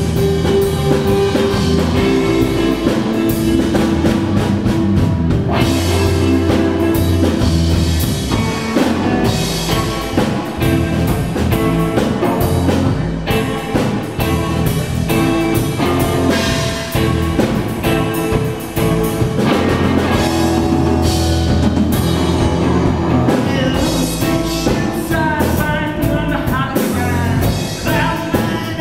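Live rock band playing loud and steadily: distorted electric guitar, electric bass and a drum kit.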